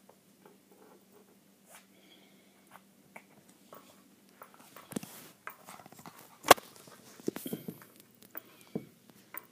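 Shiba Inu puppy nosing and pawing at a wooden puzzle toy: scattered knocks and clicks of the wooden pieces, sparse at first and busier after about five seconds, with one sharp loud click about six and a half seconds in.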